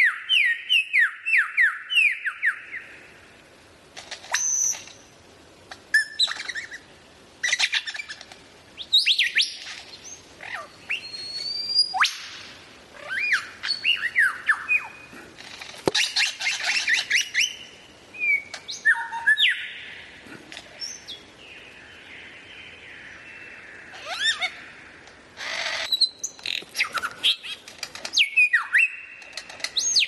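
Songbird singing a fast, varied song of chirps and whistled notes. It opens with a quick run of falling notes, about four a second, and has a longer buzzy stretch about two-thirds of the way through.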